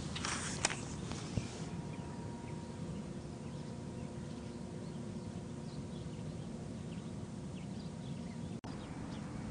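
Faint outdoor park ambience: a steady low background hum with scattered faint bird chirps, and a brief rustle about half a second in.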